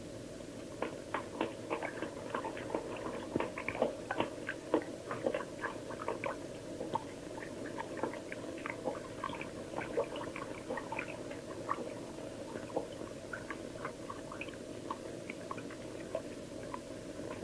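Quiet, irregular small clicks and crackles, several a second, over a steady low hiss.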